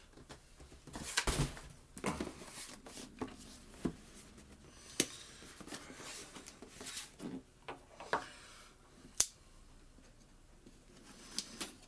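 Cardboard box and packaging being handled and opened by hand: irregular rustling, scraping and tearing, with scattered sharp clicks. The loudest is a single snap about nine seconds in.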